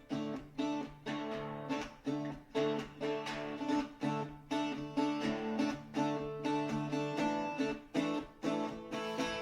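Background music: acoustic guitar strumming chords with a steady beat of about two strums a second.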